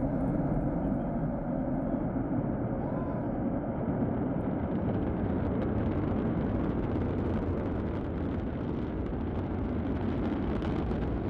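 Antares rocket's two AJ-26 first-stage engines running at liftoff: a steady, deep rumbling roar. From about five seconds in, a crackle builds over the rumble as the rocket fails and its first stage is engulfed in fire.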